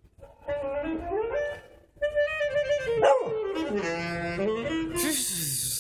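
A saxophone playing held notes that step downward, with a beagle howling along, its howl gliding up and down in pitch. A brief burst of hiss comes near the end.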